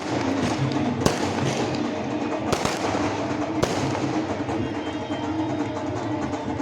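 Fireworks going off: about four sharp bangs, one about a second in, two close together halfway through and one more a second later, over a loud, steady din of music and crowd.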